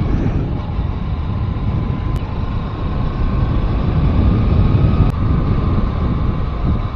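A moving vehicle: a steady low rumble of engine and road, with wind buffeting the microphone and a faint whine that rises slightly in pitch in the second half.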